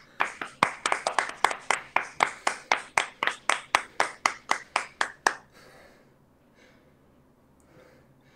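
One person clapping hands in a steady run, about four or five claps a second, stopping after about five seconds.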